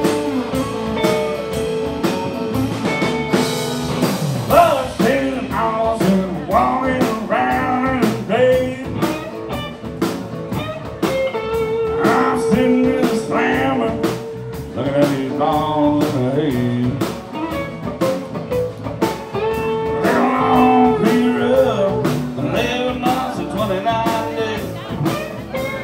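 A live band playing: electric guitars over a steady drumbeat, with a man singing lead into the microphone.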